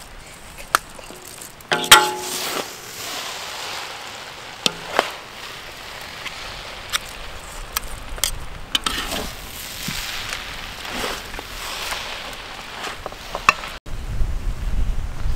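Metal spatula scraping and knocking against a large wok as noodles are tossed and stir-fried, with a light sizzle underneath. A sharp, ringing clank about two seconds in is the loudest moment, and a low rumble comes in near the end.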